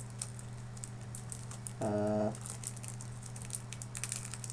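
Light rustling and crinkling of a small taped paper package of cube stickers being handled and picked open by hand. A short hummed 'mm' about two seconds in.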